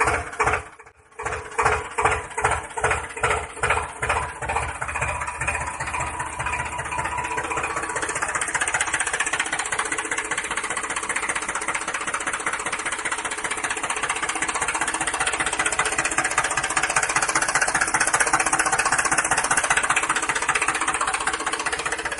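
An engine running with a knocking, chugging rhythm, as a tractor sounds under work. It pulses about twice a second at first, then settles into a steadier, faster run from about six seconds in.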